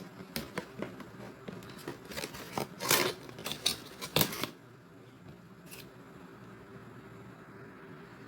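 Cardboard packaging of a meat grinder being cut and torn open: a run of clicks and scrapes with a longer scratchy cut or tear about three seconds in and a sharp knock just after four seconds. It stops about halfway through, leaving faint room hum and one more click.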